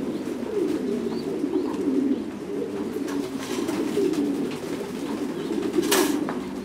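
Flock of caged Titan Thái meat pigeons cooing in a steady low chorus. There is a single sharp clatter of the wire cage near the end.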